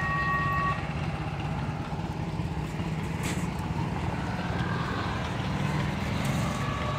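Small riding-lawn-tractor engine running steadily at a low, even pace.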